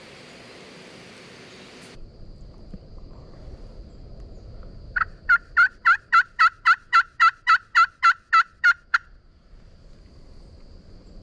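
Turkey yelps: a run of about fifteen loud, evenly spaced notes lasting some four seconds, each note breaking down in pitch and back up.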